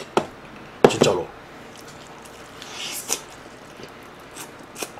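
Close-miked eating: a wet squish as sauce-coated fried chicken is bitten into and chewed, followed by a few small mouth clicks.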